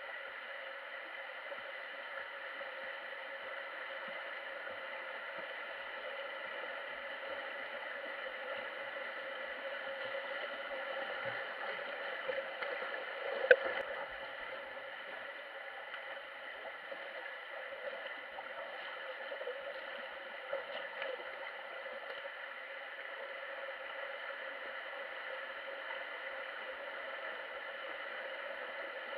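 Underwater ambience of a swimming pool picked up by a submerged camera: a steady, muffled hiss and hum. There is one sharp knock about halfway through, as a swimmer passes overhead.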